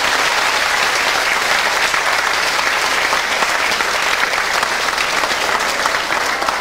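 Audience applause: many hands clapping steadily in a large hall, beginning to ease off near the end.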